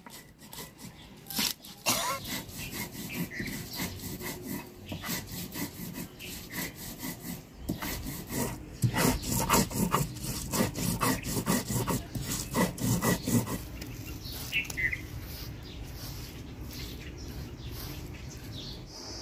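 Garlic, ginger and cumin being crushed and ground on a flat stone grinding slab (sil-batta) with a stone roller: a few knocks, then a run of gritty back-and-forth rubbing strokes that is loudest around the middle, going quieter near the end as the paste is gathered by hand.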